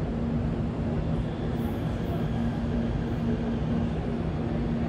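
Steady low rumble with a constant hum from electric commuter trains at a station platform.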